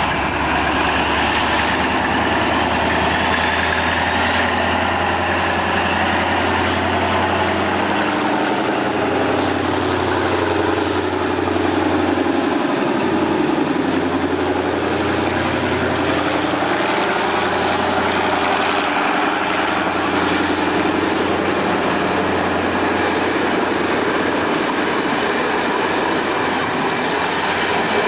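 OSE A.351-class Alsthom diesel locomotive with its Pielstick engine running as it hauls a train past close by, a steady low engine drone under the rolling noise of the train. A high whine rises in pitch over the first ten seconds, then holds.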